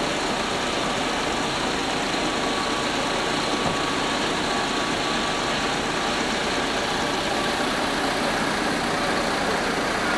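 Steady road-traffic and engine noise, a motor vehicle engine idling, with a car passing close near the end.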